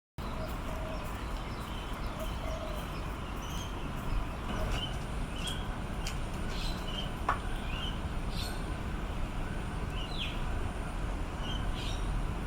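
Steady low rumble of urban background noise, with short high chirps from small birds repeating every second or so from about four seconds in.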